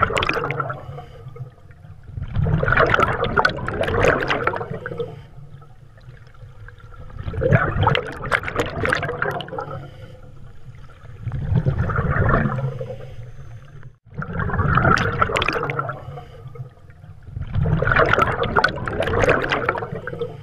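Underwater bubbling that swells and fades about every three to four seconds over a steady low rumble.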